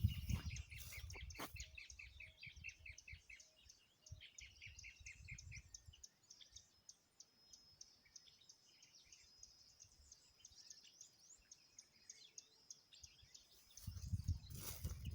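Birds chirping: a quick run of repeated chirps that step slightly down in pitch in the first half, over a faint, steady, high, thin trill.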